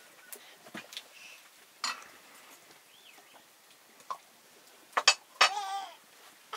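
Metal spoon clinking against metal cooking pots on an open wood fire: scattered sharp clinks, the loudest pair about five seconds in. A short wavering animal call follows right after them.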